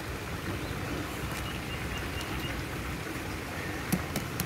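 Steady outdoor background noise, a low rumble with hiss, with a couple of small clicks about four seconds in.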